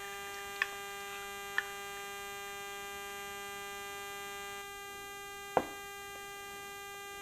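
Lemonade poured from a glass pitcher into a tall glass of ice, a soft pour that stops about four and a half seconds in, with ice clinking in the glass a couple of times and a sharper clink about five and a half seconds in. A steady electrical mains hum runs underneath.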